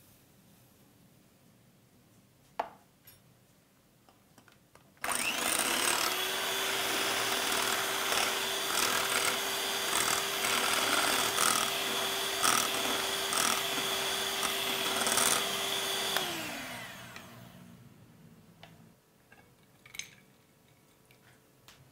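Electric hand mixer beating egg whites into meringue in a glass bowl, running steadily with a high whine for about eleven seconds, then switched off so its pitch falls as it winds down. A short tap comes a few seconds before it starts, and light glass clinks near the end.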